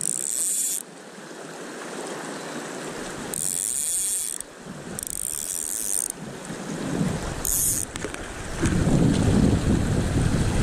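Steady rush of a river running over rocky riffles. Four short, high hissing zips come from the fly rod, line and reel as line is worked. From about three quarters of the way in, low rumbling wind buffets the microphone.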